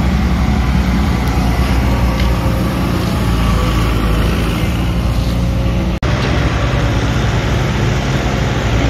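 Steady low rumble of diesel engines from road-construction machinery running, mixed with passing road traffic; it breaks off for an instant about six seconds in.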